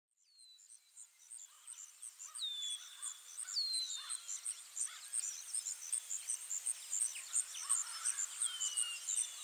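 Nature ambience fading in: crickets chirping in a steady, fast, high-pitched rhythm, with a bird giving several short whistles that slide downward in pitch.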